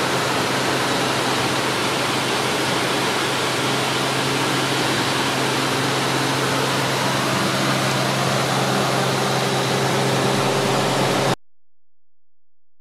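Cabin noise of a Cessna 207 in flight: the steady drone of its six-cylinder piston engine and propeller under a hiss of air. It cuts off suddenly to silence about eleven seconds in.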